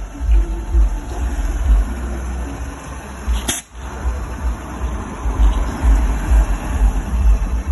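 Car sound system with six Powervox subwoofers and twelve Zetta midrange drivers playing music, the subwoofers pushing a heavy, pulsing bass beat. A short whoosh sweeps through about three and a half seconds in.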